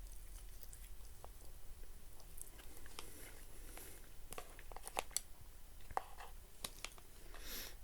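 Quiet chewing of instant noodles, with scattered soft mouth clicks and a short hiss near the end.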